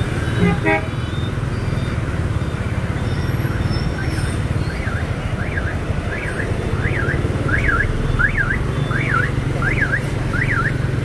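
Dense motorbike and car traffic running steadily at a city intersection, with a short horn toot about half a second in. From about four seconds in, an electronic alarm wails up and down over the traffic, about three sweeps every two seconds.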